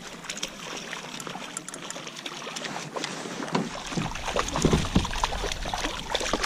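A hooked rainbow trout splashing and thrashing at the surface beside a kayak as it is reeled in, the splashes louder in the second half, over a steady hiss with many small ticks.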